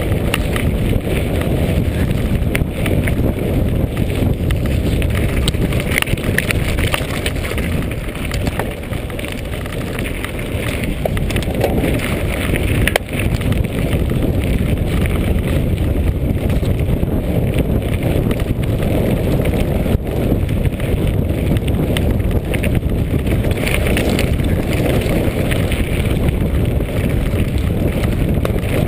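Wind buffeting the microphone over the crunch of mountain-bike tyres rolling on loose gravel and stones, with frequent small clicks and rattles from the bike and camera mount jolting over the rough track.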